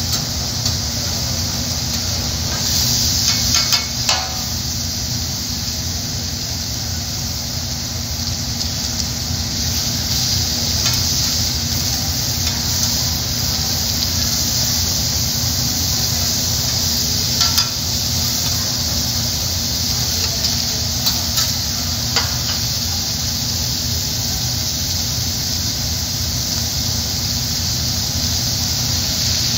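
Food sizzling steadily on a hot steel teppanyaki griddle, with occasional clinks and scrapes of metal spatulas against the plate, a cluster of them about three to four seconds in. A steady low hum runs underneath.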